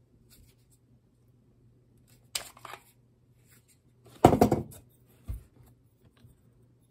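Handling noise from a polymer pistol frame, magazine and magwell: a light click about two and a half seconds in, then a louder clatter a little past four seconds as the magazine is set down on the mat, and a short thump about a second later. A faint low hum runs underneath.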